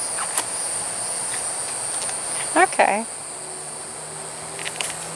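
Insects in the woods giving a steady, unbroken high-pitched trill.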